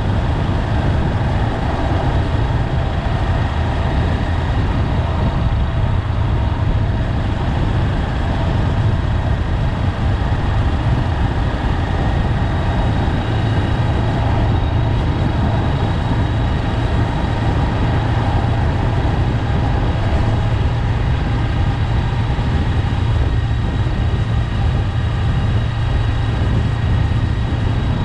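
A Honda 400X's parallel-twin engine running steadily while riding, under a constant rush of wind and road noise.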